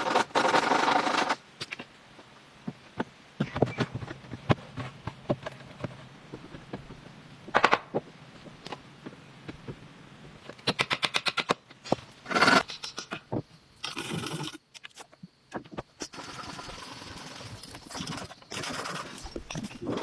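Woodworking handling sounds: scraping and cutting noises with scattered sharp taps and clicks. There is a quick run of ticks about halfway through, and a steadier stretch of scraping near the end.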